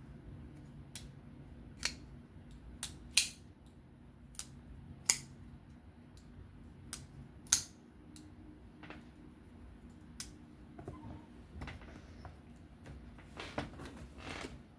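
About a dozen irregular, sharp clicks from handling a reassembled Qvist Bladeworks Invert folding knife, as its action and blade centering are checked after the pivot screw is tightened.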